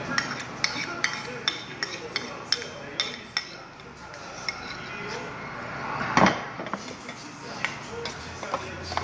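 Metal spoon clinking against metal and ceramic bowls during a meal: a run of short, sharp clinks, densest in the first few seconds. About six seconds in comes one louder, longer sound.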